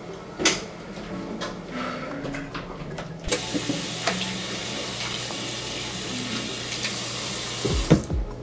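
Bathroom sink faucet running, water splashing over hands being washed under the stream; the flow starts suddenly about three seconds in and is shut off near the end. A few knocks and clicks come before it.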